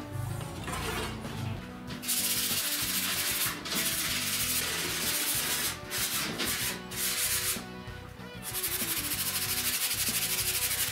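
A sanding sponge scrubbed rapidly back and forth along a wooden board, with a few short pauses. The scrubbing begins about two seconds in and turns into fast, even strokes near the end.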